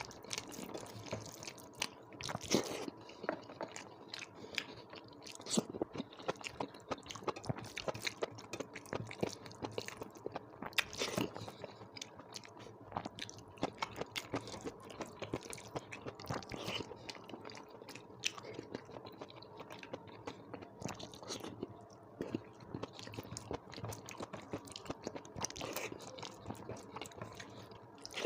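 Close-up chewing and eating sounds: a person chewing mouthfuls of rice and curry with frequent small crunches, wet mouth noises and occasional scrapes, in an irregular run of short clicks.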